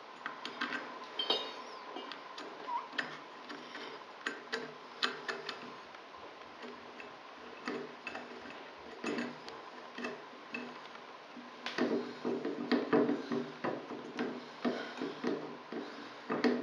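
Irregular small metal clicks and ticks of a hex key working the set screw on the underside of a shower valve lever handle as it is tightened, with a denser run of louder clicks and handling noise near the end.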